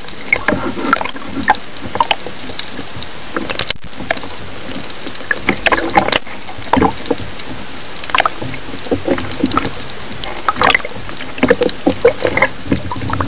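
Underwater camera audio: churning water with irregular clicks and knocks on the housing as a diver struggles with a thrashing moray eel.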